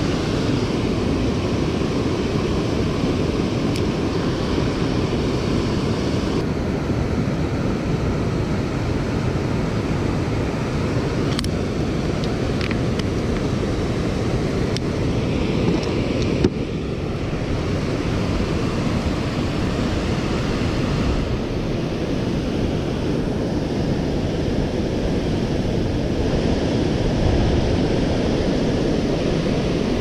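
Steady rush of whitewater spilling over a low-head dam on a river, heavy and deep in tone.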